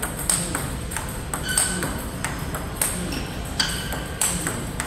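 Table tennis rally: the plastic ball clicks off rubber-faced paddles and bounces on the table in a quick, even rhythm of about three sharp clicks a second.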